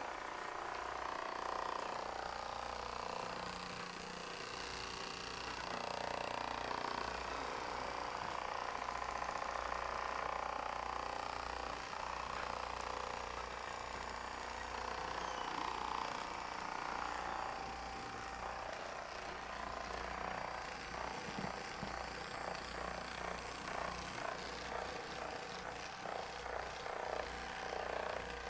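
Electric motor of a motorized chiropractic table running steadily as the lower section of the table moves, with a low hum under a higher sound that rises and falls every few seconds.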